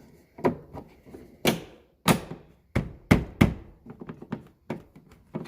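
Sharp knocks and taps of hands working the interior door panel and trim, about six loud ones in the first three and a half seconds, then lighter taps, as the trim ring is fitted back around the inside door handle.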